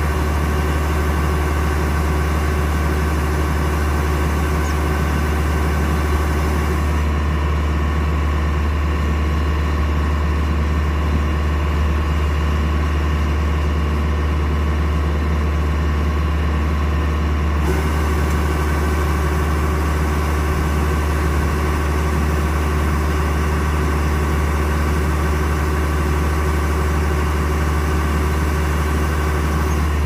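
Kubota DC-105X combine harvester's diesel engine running steadily, a deep hum with a machine drone over it. From about seven seconds in, the higher hiss drops away for some ten seconds, then comes back.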